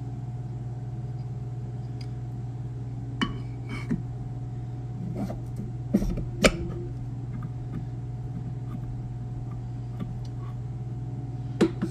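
A few sharp clicks and knocks of metal parts as a new piston is pressed by hand into a Turbo 400 forward clutch drum through an aluminium piston installer sleeve; the loudest knock is about six and a half seconds in. A steady low hum runs underneath.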